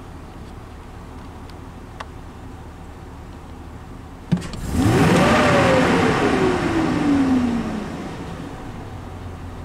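2004 Chevy Silverado 2500's gasoline V8 idling, with a click about four seconds in followed by a single throttle blip: the engine revs up quickly, then its pitch falls back to idle over a couple of seconds.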